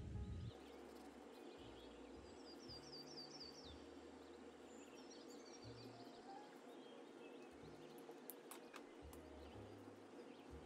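Near silence: faint steady background hiss with a few faint bird chirps, including a quick run of about six short notes about three seconds in.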